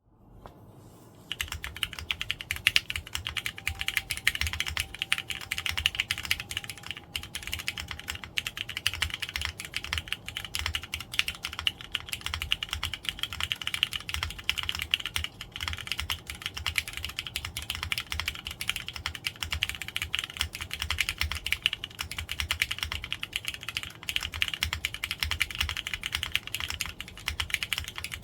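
Continuous fast typing on a Neo60 Core 60% keyboard with lubed, Poron-filmed Cherry MX Hyperglide Black linear switches on 45 g springs, a foamless aluminium plate and ABS double-shot Cherry-profile keycaps. It is a steady stream of keystrokes, each with a low thud under it, starting about a second in.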